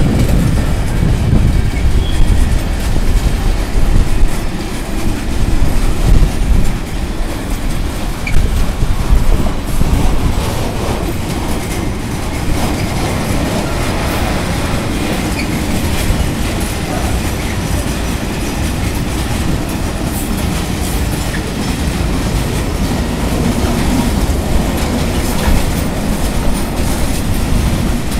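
Mixed freight train's cars rolling past with wheels clicking over the rail joints; louder and more uneven for the first ten seconds or so, then a steadier rumble.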